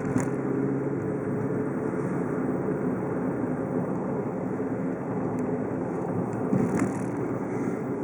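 Steady engine and road noise of a car driving, with a brief louder swell near the end.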